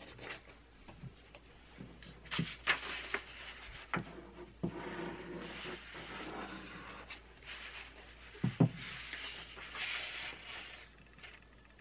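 Sheets of printer paper rustling and sliding as they are lifted and laid over one another, with a glue stick rubbed along a paper edge around the middle. Several light knocks on the table come in between, the loudest about two-thirds of the way through.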